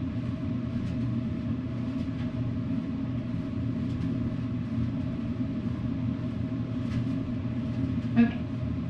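Steady low rumble of room noise with faint scuffs and taps of sneakers stepping on carpet through a rock step and triple steps. A brief, sharper sound comes near the end.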